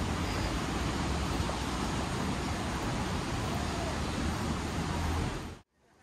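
Steady rushing outdoor noise with a low rumble underneath, which cuts off abruptly about five and a half seconds in.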